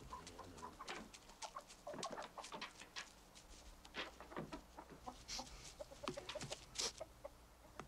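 Chickens clucking faintly, a scatter of many short, separate calls.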